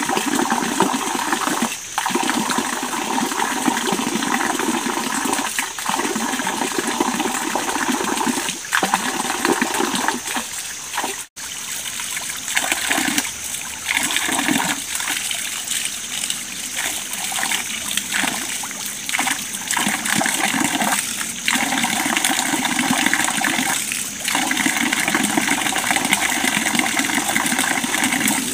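Water of a small stream running steadily over rocks.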